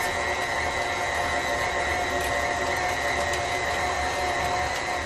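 KitchenAid stand mixer running its meat grinder attachment, a steady motor whine as beef is ground through the die.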